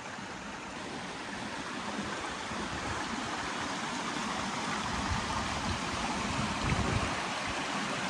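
River water rushing steadily over rocks, an even hiss of flowing water, with a few low rumbles about five and seven seconds in.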